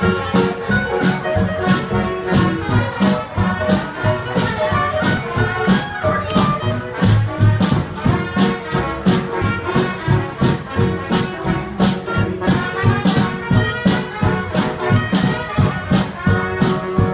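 Live jazz band playing, brass horns including a trombone over a steady drum beat.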